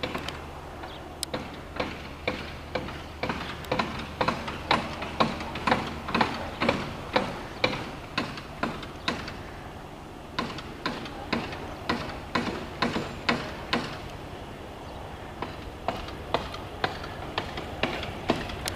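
Freight train's wheels clicking over rail joints as it approaches, a steady run of sharp clicks about three a second, easing briefly about fourteen seconds in.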